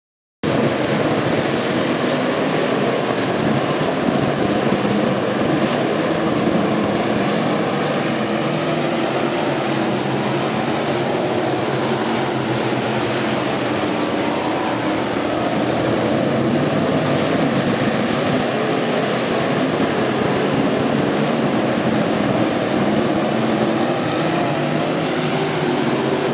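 A pack of dirt-track stock cars racing together at speed, their engines blending into one loud, steady drone. It starts abruptly about half a second in.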